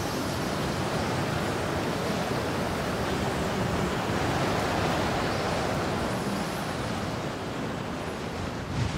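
A steady rushing noise with no tone or beat, a little louder around the middle.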